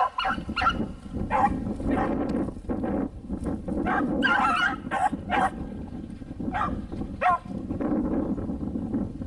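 Pack of beagles baying and barking in short, irregular calls as they run a rabbit's scent trail, over a steady low background noise.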